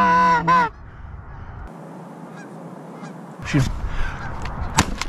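A loud goose honk whose pitch breaks upward, ending within the first second. Near the end, right after a shout of "shoot", two shotgun blasts in quick succession.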